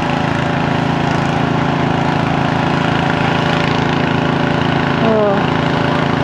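An engine running at a steady speed, a constant low drone that doesn't change pitch.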